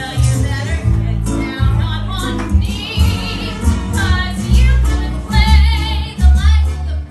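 A woman singing a cabaret song into a microphone, with vibrato on the held notes, over piano accompaniment.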